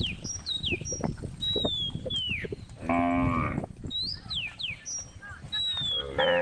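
Cows mooing: one moo lasting about a second, about three seconds in, and a louder one starting near the end. High, quick falling chirps sound on and off throughout.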